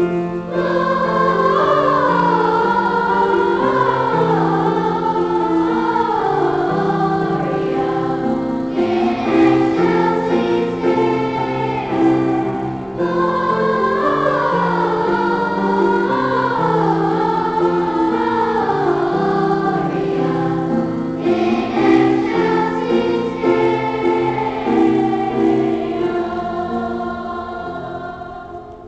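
Children's choir singing together, the song's last note fading away near the end.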